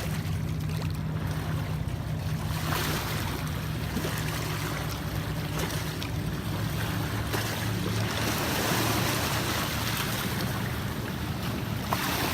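Steady wash of water and wind noise on the microphone, with a low steady hum underneath.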